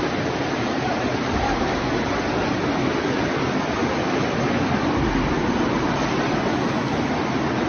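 Muddy floodwater rushing down a street in a steady, unbroken rush of water.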